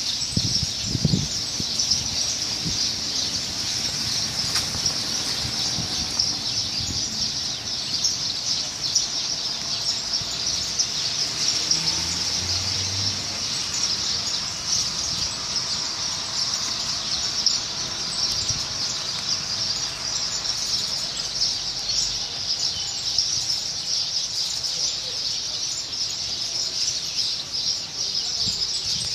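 Many birds chirping at once in a dense, continuous high chatter that keeps up without a break.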